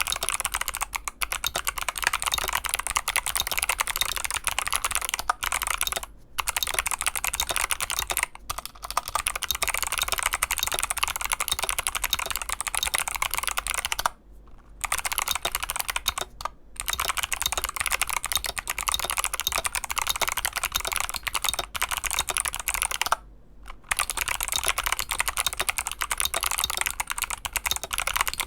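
Fast, continuous typing on a Drop CTRL mechanical keyboard with Novelkeys x Kailh Box Jade clicky switches and PBT keycaps. Each keystroke gives a sharp click, and the clicks pour out in a dense stream that stops briefly four times.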